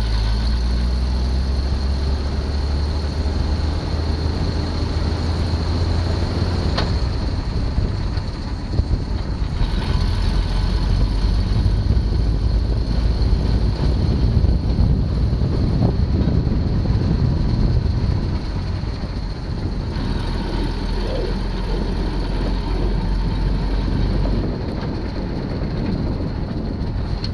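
Engine of an M715 military truck running while the truck drives along, a steady low rumble whose note shifts a few times and eases off near the end.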